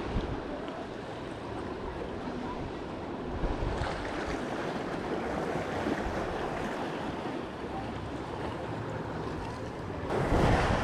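Surf washing over a rocky shoreline, with wind buffeting the microphone; the rush grows louder near the end.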